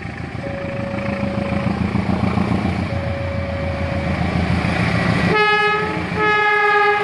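Approaching diesel-electric freight train, CC203 and CC201 locomotives: the engines' low rumble grows steadily louder. Near the end the locomotive horn sounds twice, a short blast and then a longer one.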